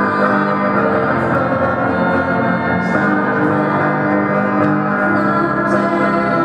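A live band playing a song on amplified electric guitars.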